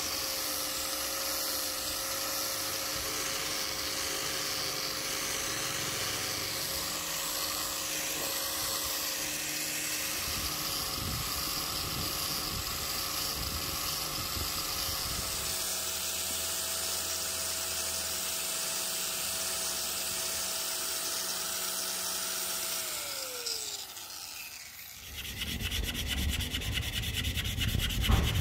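Power drill spinning a foam buffing pad against an ebony hammer handle: a steady motor whine that steps up slightly in pitch about halfway, then winds down and stops a few seconds before the end. A rubbing sound follows in the last few seconds.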